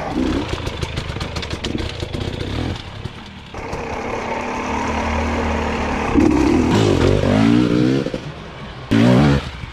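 2022 GASGAS EC250 two-stroke dirt bike engine running under throttle on a rough trail, with a rapid clatter over the first few seconds. The engine pitch rises as it revs up around six to eight seconds in, and a short loud rev comes near the end.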